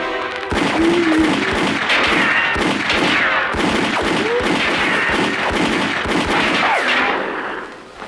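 A long, rapid volley of gunshots, dozens of shots over about seven seconds with high falling whines mixed in, dying away near the end. A held musical chord comes just before the shooting starts.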